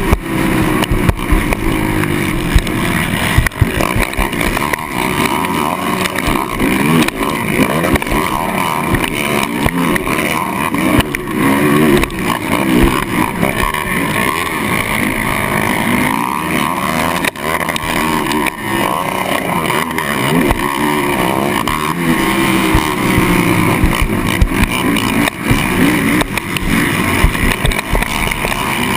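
Kawasaki KFX450R racing quad's single-cylinder four-stroke engine running hard, its pitch rising and falling continuously as the throttle works. It is heard from a helmet-mounted camera, with wind rush and frequent knocks.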